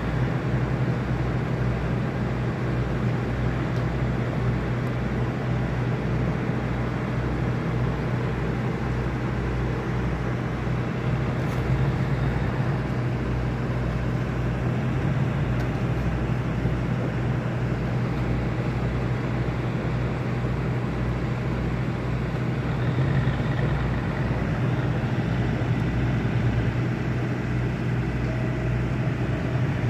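Tugboat's diesel engine running steadily: a deep hum with a regular low throb.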